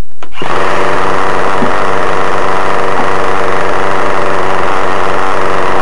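Small nitro glow engine of a Raptor 30 RC helicopter converted to a .50 engine starts up suddenly about half a second in and runs steadily at idle, loud and close.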